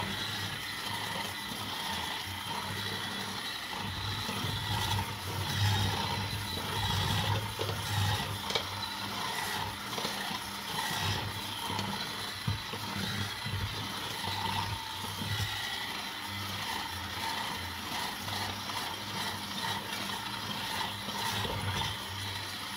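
Electric hand mixer running steadily, its beaters working through crumbly butter cookie dough, with scattered knocks against the bowl.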